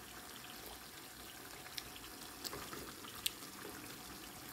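A pot of milkfish simmering in a little sinigang sauce on a gas burner: a faint, steady sizzle with a few scattered pops.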